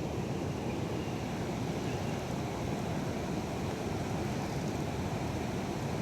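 Steady low rushing of flowing river water.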